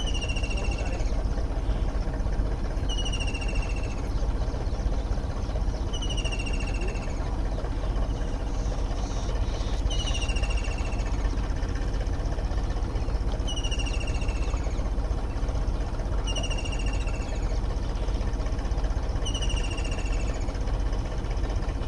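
Tractor diesel engine running steadily while it powers a pulley-driven water pump. Over it, a bird repeats a short, falling whistle about every three seconds.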